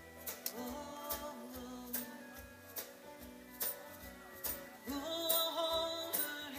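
Live band playing a slow country song: guitars over a bass line, with drums and cymbal hits keeping time, heard from the crowd.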